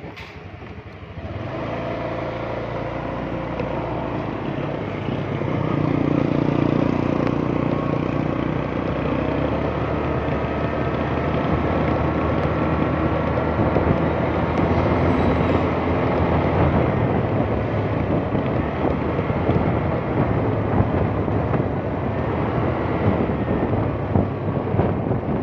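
Motorcycle engine running while riding, over steady road and wind noise. It gets louder about a second in and again around six seconds in as the bike speeds up.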